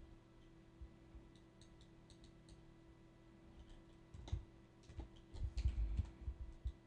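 Faint, scattered computer mouse clicks, with a cluster of louder clicks and low thumps about two thirds of the way through, over a steady low electrical hum.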